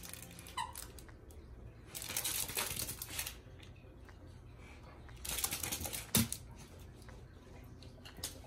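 Small dog playing with plush toys on a rug: two stretches of rustling and scuffling, each about a second long, as it mouths and shakes a toy and moves about, followed by a single thump.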